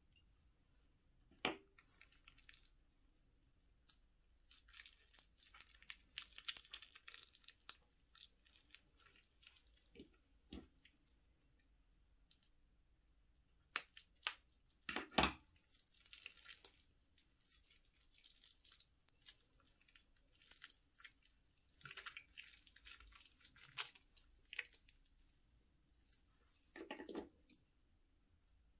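Scissors snipping through a slime-filled plastic piping bag, with the plastic crinkling and slime squishing out. There are scattered sharp clicks and stretches of crackling, and the loudest clicks come in a cluster about halfway through.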